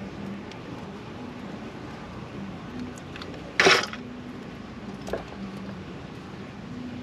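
A short scrape of a hand crimping tool working a jumper wire about halfway through, then a faint click about a second and a half later, over steady background noise.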